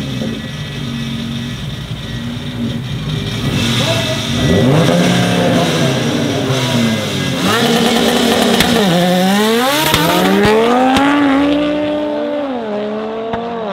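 A VW Golf 7.5 R's swapped-in 2.5 TFSI turbocharged five-cylinder and a Honda Civic's engine revving in bursts at the drag-strip start line. Partway through they launch and accelerate hard: the engine note climbs and drops back at each upshift, then fades as the cars pull away.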